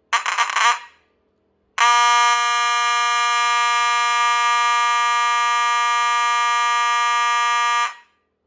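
Federal Signal 450D fire alarm horn sounding a loud, steady buzzing tone: a short, uneven blast just after the start, then after a second's pause one long blast of about six seconds that cuts off abruptly.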